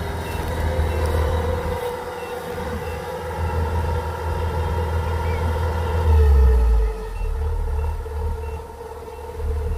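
Kubota DC-105X tracked combine harvester's diesel engine running steadily as the machine crawls along, with a louder low rumble for about a second past the middle. Its warning beeper gives short high beeps about twice a second at the start and again later on.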